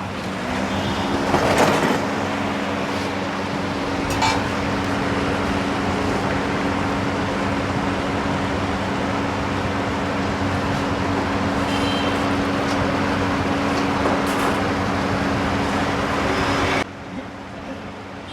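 Air cooler fan switched on: its motor hums up to speed and settles into a steady hum under a loud rush of blown air, with a couple of brief clatters early on. It stops abruptly near the end.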